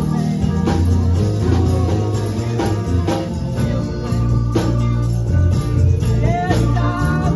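Live gospel worship music: an organ, guitar and a heavy bass line over a steady beat, with a voice singing and sliding in pitch near the end.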